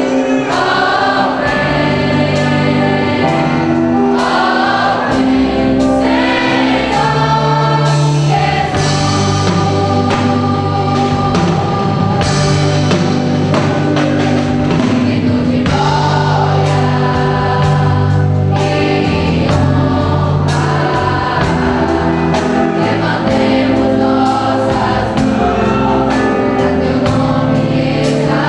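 Choir singing a gospel song with instrumental accompaniment: sung melody over sustained bass notes and a steady beat.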